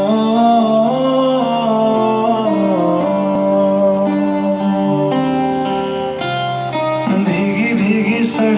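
Music with guitar and a singing voice; the wavering sung line is clearest from about seven seconds in.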